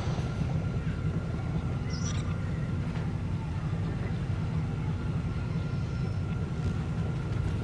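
Sci-fi town ambience: a steady low hum with a faint high steady tone over it, and a short high chirp about two seconds in.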